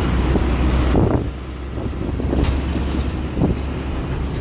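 Truck driving along, heard from inside its cab: a steady low engine and road drone with wind noise over it, a little louder in the first second.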